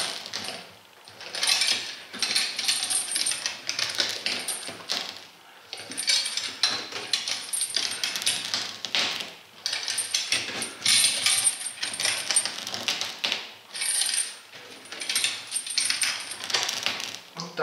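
A strip of rubber tearing off the carcass of an Omsk OI-25 truck tyre as it is pulled away by a clamp. It is a crackling rip that comes in about four spurts of a few seconds each, with brief pauses between them.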